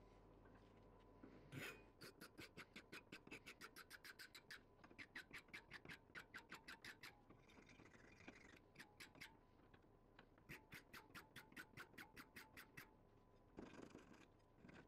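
A flat hand file rasping across the edge of an old can opener's steel blade in quick short strokes, about six a second, in several runs with short pauses between.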